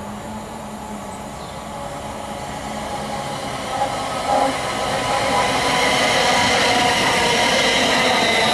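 TransPennine Express Class 350 Desiro electric multiple unit approaching and running in alongside the platform, its wheels-on-rail rumble and motor hum growing steadily louder as it nears. There are two brief knocks about halfway through.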